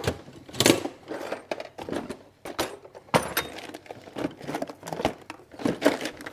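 Rummaging among items on a shelf: irregular knocks, clinks and rustles as things are moved about.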